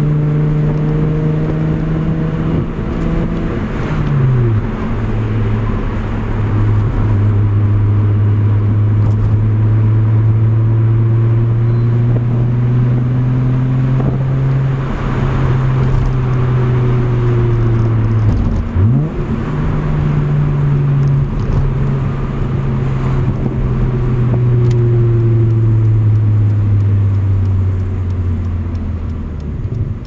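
1995 Volkswagen Golf GTI Mk3's 2.8-litre 12-valve VR6 engine, fitted with a custom intake and, the owner believes, a deleted exhaust resonator, heard from inside the cabin while driving. Its steady drone drops sharply in pitch at two gear changes, about four seconds in and just before twenty seconds in, and slowly sags in pitch between them.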